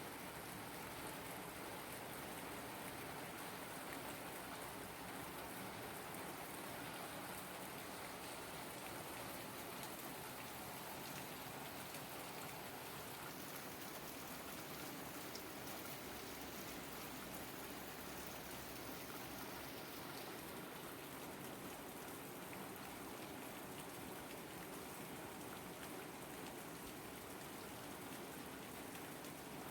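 Steady rain falling, the patter of raindrops on surfaces.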